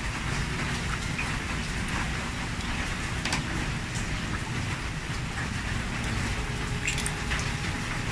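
A few sharp clicks and scrapes of a metal spoon prying open blood cockle shells, over a steady rushing background noise.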